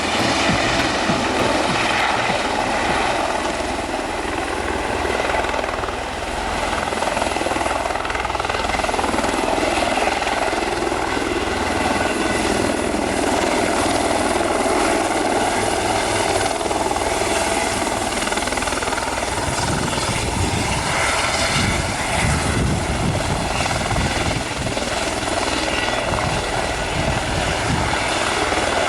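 Eurocopter EC130 single-turbine helicopter hovering and hover-taxiing sideways, its engine and rotors running steadily at flight power. A heavier low rumble swells for a few seconds about twenty seconds in.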